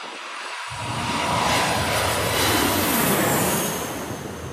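Twin-engine jet airliner passing low overhead on landing approach. The engine roar builds to a peak about three seconds in, a high whine drops in pitch as the plane goes over, and the roar eases off near the end.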